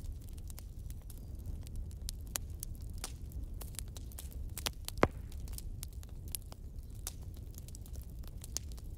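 Faint irregular crackling: scattered sharp clicks over a steady low rumble, with one louder pop about five seconds in.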